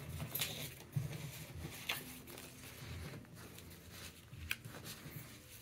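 Faint handling noise: soft rustles and a few light bumps as a paper setup guide and leaflet are shifted and laid flat on carpet.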